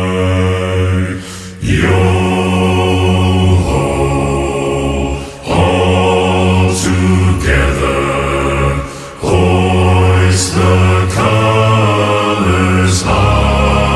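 Low voices singing a slow, unaccompanied sea-shanty chant in unison. The notes are long and held, with short breaks between phrases.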